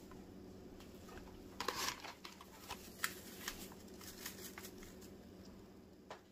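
Foil spice sachet rustling as it is opened about a second and a half in, then crinkling in a scatter of small crackles as it is handled and the powder is shaken out. A faint steady hum runs underneath.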